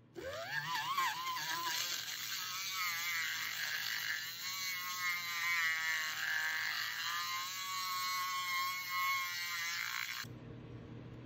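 Small handheld electric mixer with a metal shaft stirring nail polish in a paper cup: a motor whine that rises in pitch as it starts, wavers in pitch while it runs, and cuts off suddenly about ten seconds in.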